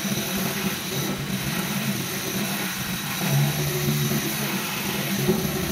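Water rushing through a STORCH paint-roller washer and spilling into a stainless steel sink as a paint roller is rinsed out in it: a steady rush of water with a low hum beneath.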